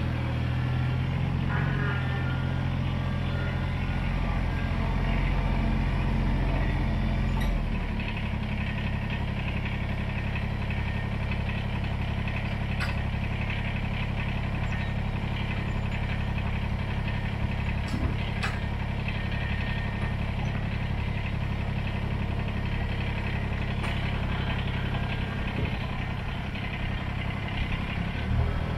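Kubota BX25D compact tractor's three-cylinder diesel engine running steadily. About seven and a half seconds in it drops to a lower, steady idle. A few sharp knocks sound in the middle.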